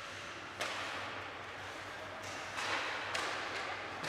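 Ice hockey play on a rink: sudden hissing scrapes of skate blades cutting into the ice, with sharp stick-and-puck knocks. There is one scrape about half a second in and a quick run of three more in the second half.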